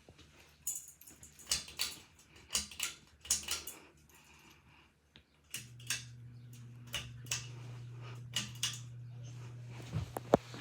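Hampton Bay Littleton ceiling fan: a run of sharp clicks and rattles, then about five and a half seconds in a steady low motor hum starts, with a few more clicks over it.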